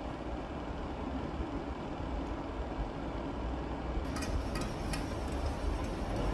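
A chef's knife chopping cabbage on a plastic cutting board, with a few sharp taps of the blade on the board about four seconds in, over a steady low machine hum.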